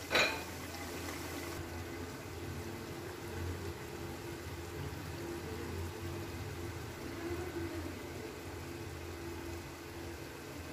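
Thick beef karahi gravy bubbling and sizzling in a karahi on high flame, a steady simmer. A single sharp knock comes right at the start.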